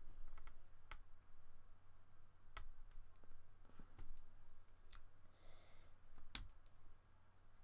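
Faint, scattered clicks of resin diamond-painting drills and a drill pen tapping as the drills are picked up and pressed onto the sticky canvas, about six in all, with a brief soft rustle a little past the middle. A low steady hum runs underneath.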